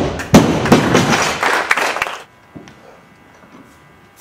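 Barbell loaded with bumper plates dropped on the lifting platform, bouncing and clattering with several sharp knocks for about two seconds before it settles.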